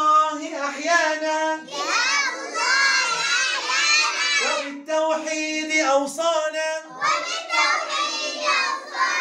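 A group of young children chanting an Arabic nasheed in unison, in loud high voices with held notes. It comes in phrases with short breaks between them.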